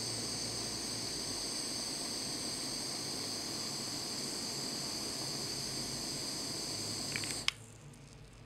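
Cook's blowtorch flame hissing steadily as it caramelizes a sugar cube, then shut off with a click about seven and a half seconds in.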